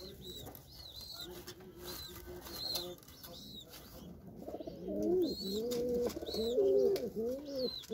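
White Indian fantail (Lokkha) pigeons cooing: a run of low, rolling, arching coos that grows much louder about halfway through. Faint higher chirps repeat behind them.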